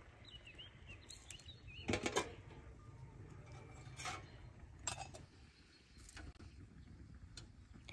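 Clinks and clatter of metal and glass as a tea kettle is set down on a metal grill and small tea glasses and a brass teapot are handled: the loudest clatter comes about two seconds in, then a few single clicks. A few small bird chirps sound early on.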